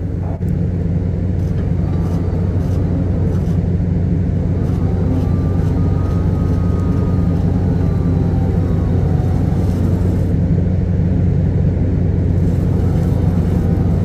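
Steady low mechanical rumble of shipboard machinery while a lifeboat is lowered on its davit winch, with a faint thin whine in the middle.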